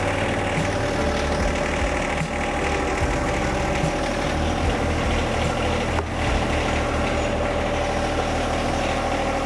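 A John Deere subcompact tractor's diesel engine running steadily at low speed as the tractor pulls away.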